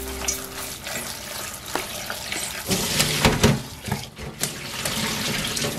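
Tap water running and splashing over mushrooms in a stainless steel colander in a metal sink, with scattered clicks and knocks as the colander and mushrooms are handled.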